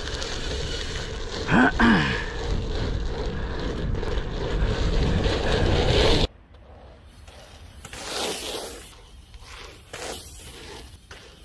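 BMX bike ridden at speed with the microphone on the handlebars: wind rushing over the microphone and tyres rolling on the track, with one brief squeak that bends up and down about two seconds in. Just past halfway the sound cuts to a much quieter, more distant rolling of tyres on dirt that swells and fades as the bike passes over the rollers.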